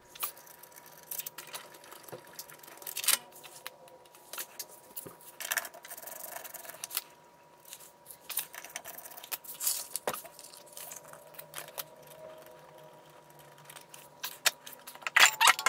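Scattered metal clicks and clinks of hand tools and bolts while the differential cover bolts are taken out and set down, with a louder clatter near the end.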